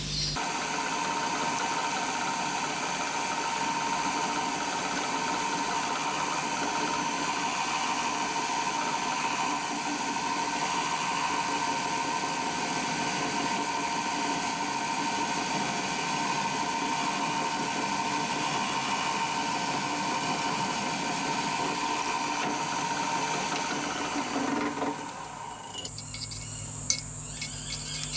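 Drill press running steadily while a twist drill cuts a hole through an aluminium disc; it stops about 26 seconds in, followed by a few light clicks.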